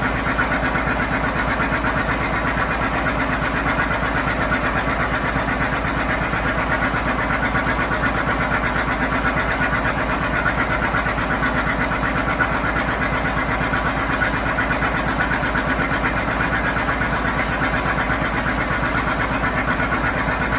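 John Deere 720 two-cylinder diesel tractor engines running steadily on the belt to power a sawmill, an even, rhythmic firing beat with no change in speed.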